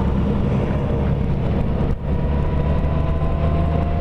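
Honda Gold Wing motorcycle under way, heard from the rider's seat: a steady engine hum mixed with wind and road noise. There is a brief dip about halfway through, then a faint whine that rises slowly.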